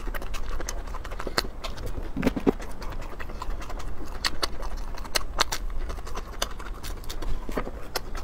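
Close-miked chewing of crunchy fried food: a string of sharp wet clicks and crunches, several a second, with a fuller bite-and-crunch about two seconds in.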